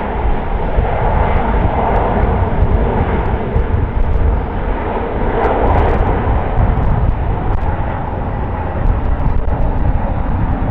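Twin jet engines of a Boeing 777 running as the airliner rolls along the runway: a loud, steady rumbling noise that wavers slightly in strength.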